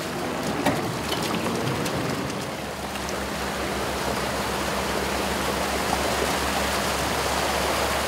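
Muddy floodwater rushing over rocks in a steady flow, with the low, steady hum of an excavator's engine joining about a second in.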